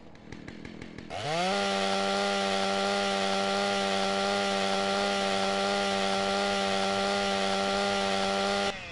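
Chainsaw engine spinning up with a quick rising pitch about a second in, then running at a steady high pitch before cutting off abruptly near the end.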